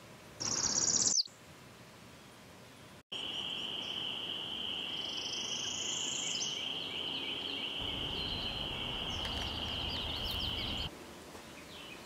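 Wild birdsong in short edited clips: a brief high, falling song phrase, then after a cut a long, even, high-pitched trill held for about eight seconds, with other birds calling over it.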